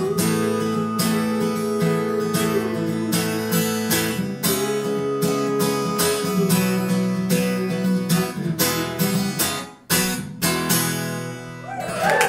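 Acoustic guitar strummed in a steady rhythm, with chords ringing between strokes. The playing breaks off briefly about ten seconds in, then the strumming picks up again.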